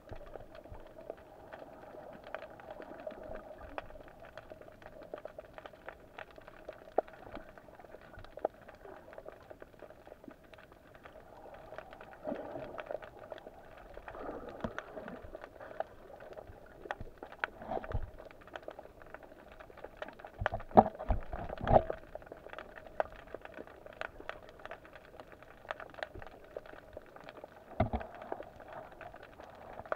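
Underwater sound on a rocky seabed: a steady muffled hum dotted with many small clicks and crackles. Several louder low, muffled knocks and water rushes come and go, strongest a little past the middle.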